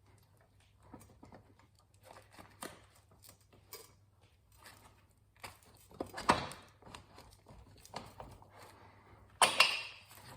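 Scattered clicks, light knocks and rustling of tools and metal parts being handled, with a louder clatter about six seconds in and again near the end.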